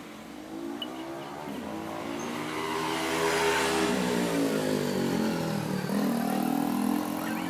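A motor running, its pitch rising, then falling about halfway through, then rising again near the end.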